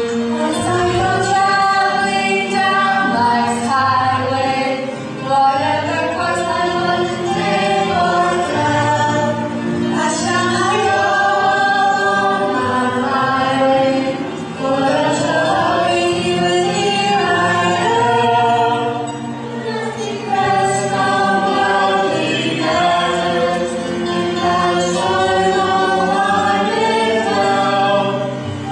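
A stage chorus singing a slow song in harmony, held chords shifting every second or two, with short breaths between phrases.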